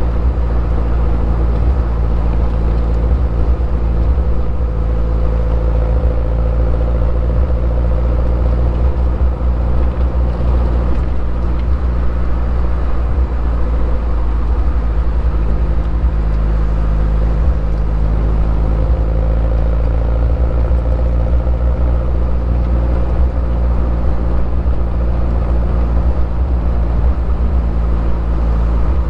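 2011 Mini Cooper S (R56), turbocharged 1.6-litre four-cylinder on its stock exhaust, cruising at a steady speed: a steady low engine drone with road rumble and no hard revving, with a faint steady whine above it.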